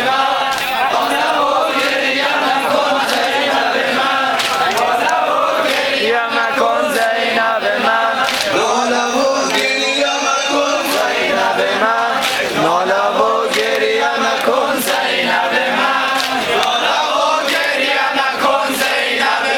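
Men chanting a Shia mourning lament (noha) led by a maddah, many voices together, with sharp chest-beating slaps of sineh-zani keeping a steady beat a little over a second apart.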